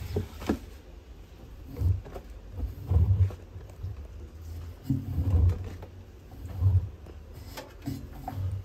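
Damp cloths being handled and pulled out of the drum of a front-loading washing machine: several low thumps and rustles, with a few light knocks.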